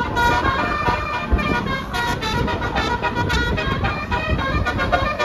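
Tour bus 'telolet' (basuri) multi-tone horn playing a quick tune of short notes at changing pitches, over the low rumble of road traffic.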